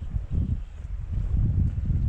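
Wind buffeting the microphone in irregular low rumbling gusts.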